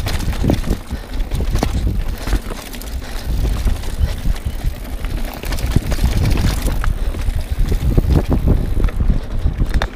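Mountain bike riding down a rocky trail: wind buffeting the microphone over a steady low rumble of tyres on rock and dirt, with frequent knocks and rattles from the bike jolting over stones.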